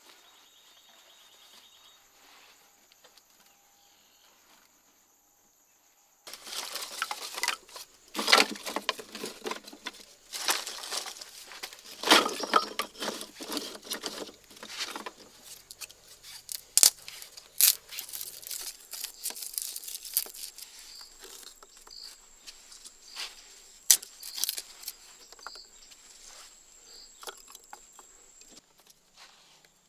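Dry sticks and kindling being handled by hand: a run of rustling and crackling with sharp cracks that starts a few seconds in, loudest in the first half and thinning out later. Before it, only insects chirring steadily.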